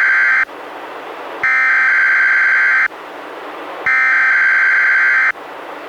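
NOAA Weather Radio EAS/SAME digital header: harsh buzzing data bursts, the end of one and then two full ones, each about a second and a half long with about a second of static hiss between. This is the coded header that sets off weather alert receivers, here opening a Required Weekly Test.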